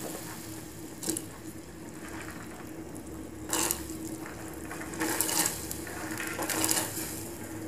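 Pieces of drumstick (moringa pod) dropped into a steel pot of boiling tamarind curry: several short wet splashes and plops, over a steady low hum.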